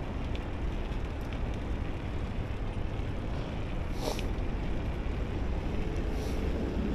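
Steady wind rumble on the microphone and road noise while riding, with a brief click about four seconds in.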